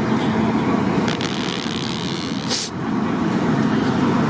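Traffic noise on a rain-wet street: a steady hiss of tyres on the wet road over an engine hum, with a short, sharper hiss about two and a half seconds in.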